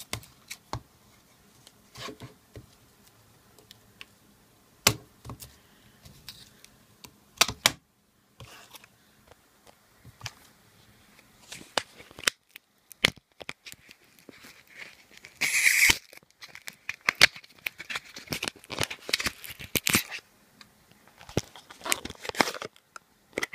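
Handling of a small cardboard product box as it is opened and its sticker removed: scattered taps and clicks, a short loud tearing sound about two-thirds of the way through, and busier rustling and clicking after it.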